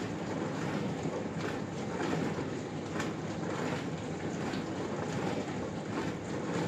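Arçelik dishwasher running a wash: the circulation pump runs steadily and water sprays from the spray arms against the inside of the tub. The pump is running normally on a newly fitted start capacitor.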